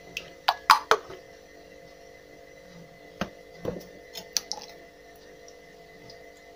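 Light clinks and taps of a porcelain cup and a wire whisk against a ceramic mixing bowl as kefir is poured in: a quick cluster of clinks in the first second, then a few more around the middle.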